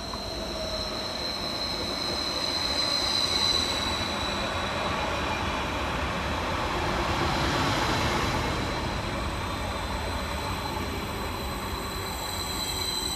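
Class 231 Stadler FLIRT diesel multiple unit arriving into a station and running past along the platform. A steady high-pitched whine is strongest about three seconds in, and wheel and running noise swells to its loudest a little past halfway as the train passes.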